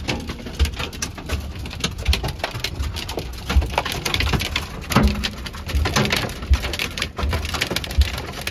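Hail and rain pelting the metal roof and windshield of a Ram ProMaster camper van, heard from inside the cab: a dense, irregular patter of hard clicks with heavier knocks mixed in. The hail is getting heavier and bigger.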